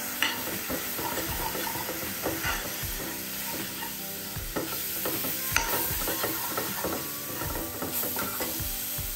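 Steel spoon stirring and scraping shallots and spice powders around a kadai in hot oil, repeated scraping strokes over a steady sizzle of frying.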